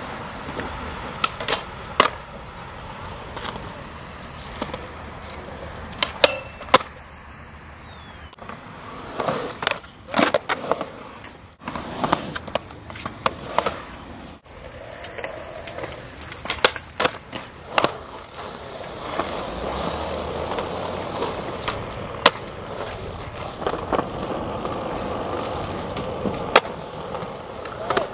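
Skateboards rolling on smooth concrete, with a steady rolling noise broken by many sharp clacks of the boards hitting the concrete.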